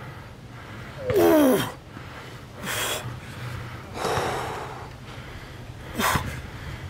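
A man breathing hard with effort during ring dips. About a second in comes a short strained groan falling in pitch, then three forceful puffs of breath spaced a second or two apart.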